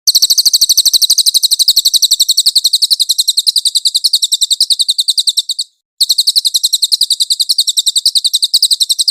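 Cililin song: a long, fast run of high, thin chirps at about nine a second, all at an even pace. It breaks off for a moment a little past halfway, then starts again.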